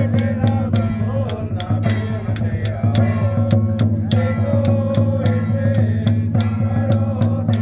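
Taoist ritual music: a large barrel drum beaten in quick, irregular strokes with sharp percussion strikes, under a wavering chanted melody.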